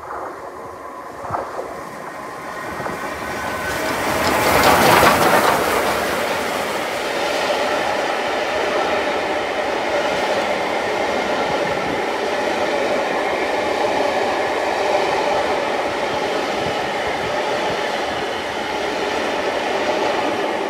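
Steam locomotive Scots Guardsman, an LMS Royal Scot class 4-6-0, passing through the station with its train. The sound builds to its loudest about five seconds in as the engine goes by, then the coaches roll past with a steady sound of wheels on the rails.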